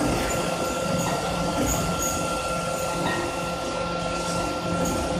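Steady running noise of a steel round bar induction heating line: roller conveyor and feed rollers carrying hot bar stock, with a rattling rumble and a steady high whine.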